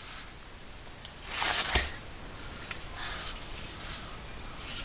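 Pieces of wood being handled: a short scrape ending in a sharp wooden knock about a second and a half in, then faint rustling.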